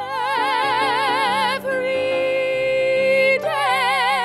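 A woman singing one long held note on "every" in a musical-theatre song, over sustained accompaniment. The wide vibrato flattens into a straight tone in the middle and comes back near the end.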